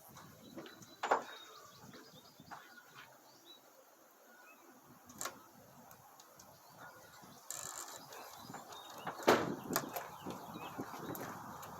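A few short, sharp clicks and knocks over a faint outdoor background, the loudest about a second in and about nine seconds in, with a rise in background noise in the second half. Birds chirp faintly.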